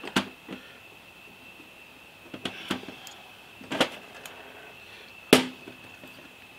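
Steel parts of a Hardinge lathe collet closer clicking and knocking together as they are fitted by hand and with a screwdriver: several short, sharp clicks, the loudest about five seconds in with a brief ring. A faint steady high whine sits in the background.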